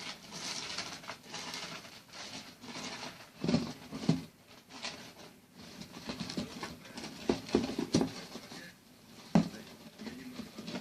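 Syrian hamster scrabbling and rustling through bedding in its cage, in repeated bursts with a few short knocks as it shifts things about.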